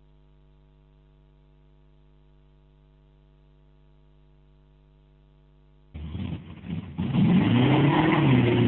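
A faint steady electrical hum for about six seconds, then a lifted pickup truck's engine comes in loud, revving with its pitch rising and falling.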